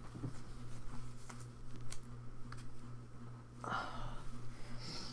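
Trading cards being handled: faint clicks and rustles as packs and cards are worked through, with a short breathy rush about three and a half seconds in, over a steady low electrical hum.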